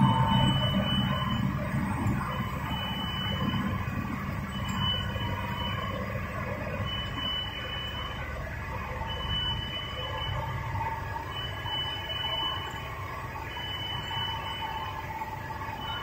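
An electronic warning beeper sounding a short high beep about every two seconds over the low hum of running rubber extrusion machinery. The hum slowly fades.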